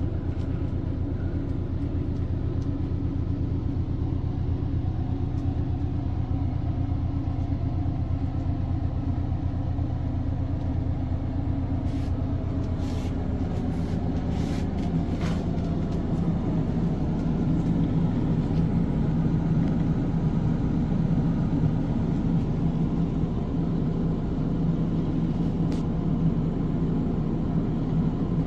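Quadcopter drone's motors and propellers running with a steady hum, its pitch stepping up about halfway through as the motor speed changes.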